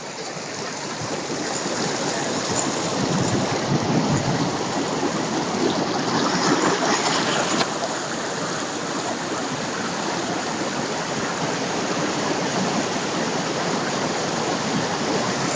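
Steady rushing noise of running water, building a little over the first few seconds and then holding even.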